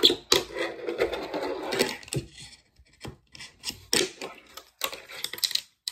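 A small wooden fingerboard deck being handled: a rubbing scrape lasting about a second and a half, then a scattering of light wooden clicks and knocks.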